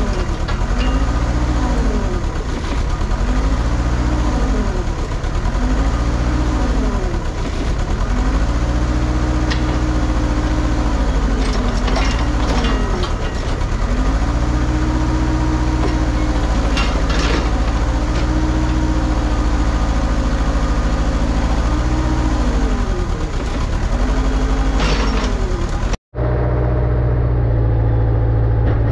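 Diesel engine of a Kubota KX161 mini excavator working under hydraulic load, its pitch repeatedly rising and sagging as the controls are worked, with a few sharp metallic clanks. The machine has a low-power problem. About 26 s in the sound cuts out for a moment and then the engine runs steadier.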